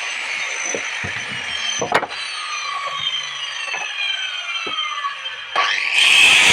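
A power tool at work on wood: its motor whine slowly falls in pitch as it winds down, with a sharp click about two seconds in, then a loud burst of cutting noise near the end.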